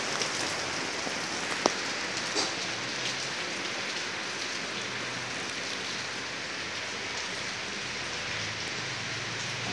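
Heavy rain falling steadily, heard from just inside a shop, with two sharp clicks about two seconds in.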